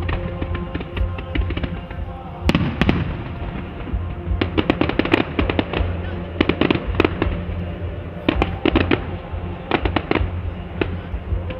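Fireworks going off: a bang about two and a half seconds in, then four bouts of rapid crackling and popping, over music playing in the background.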